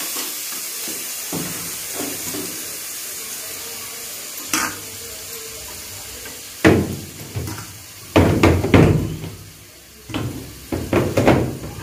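Ghee sizzling steadily in a steel kadhai. From about seven seconds in come several louder bursts of sizzling and scraping as washed rice is scooped by hand off a steel plate into the hot ghee to fry.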